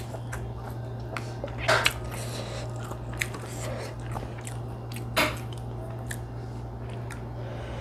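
Close-up eating sounds: chewing mouthfuls of fried rice vermicelli, with short clicks of a metal fork against a glass food container, two of them louder, about two seconds in and about five seconds in. A steady low hum runs underneath.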